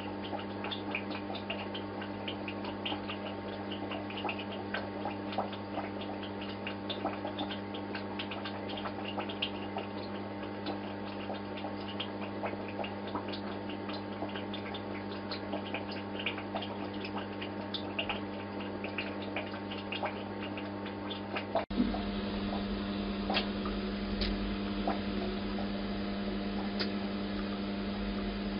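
Aquarium pump humming steadily, with a patter of small water ticks and drips over it. About 22 seconds in the sound cuts to a louder, lower hum with fewer ticks.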